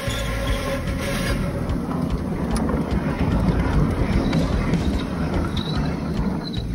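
7¼-inch gauge Romulus miniature live steam locomotive moving under its own steam, with exhaust steam and the clatter of its running gear. Its valves are not yet properly set.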